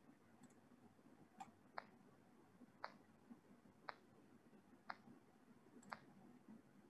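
Faint, sharp clicks about once a second over near-silent room tone.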